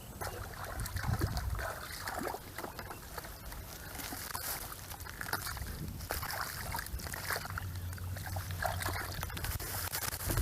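Water sloshing and trickling with many small irregular splashes, as of hands working in shallow muddy water.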